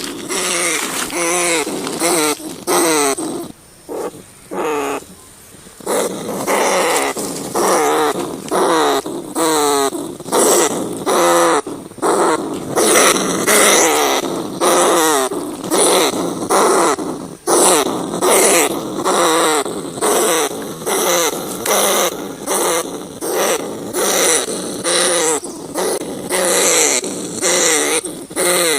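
Rats crying: a rapid, continuous run of short, harsh squealing calls, a few each second, with a brief lull a few seconds in.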